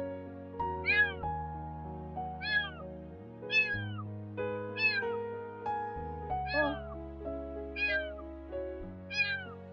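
A tiny stray kitten meowing over and over, about seven short high meows, each falling in pitch, roughly a second apart. Background music with sustained notes and a bass line runs underneath.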